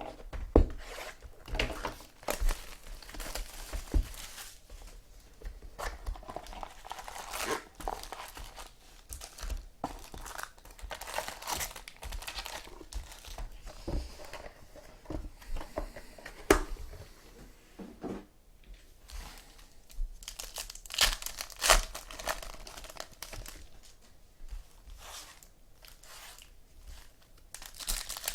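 Trading-card pack wrappers being torn open and crinkled by hand, in irregular rustles with sharp clicks and crackles.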